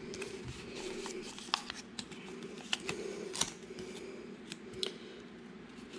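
A folded Goldback gold-foil note being handled and creased between fingers: a scatter of short, sharp crinkles and clicks.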